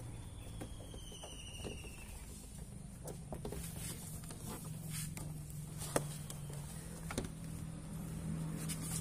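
Scattered light clicks and taps from work on a car door's trim, the sharpest click about six seconds in, over a steady low hum. A bird gives a short falling whistle about a second in.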